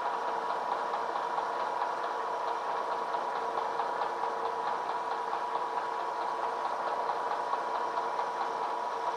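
Bridgeport-type vertical milling machine running, its end mill taking a roughing cut on a cast locomotive cradle as the table is hand-fed. It makes a steady whine with a fine, even cutting chatter.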